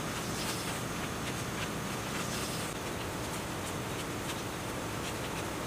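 Stiff insulation paper being cut and pushed into the slots of a generator stator: several soft rustles and scrapes of paper over a steady hiss.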